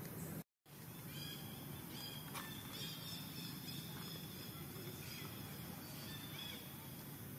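Baby monkey crying in thin high-pitched calls, held notes and short arching squeaks, over a steady background hiss. The sound drops out for a moment about half a second in.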